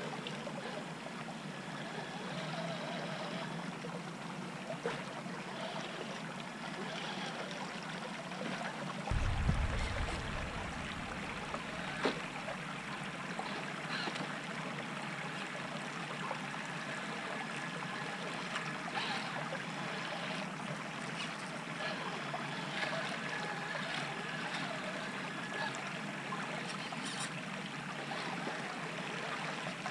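Shallow creek water trickling steadily over rocks and sand, with a brief low thump about nine seconds in.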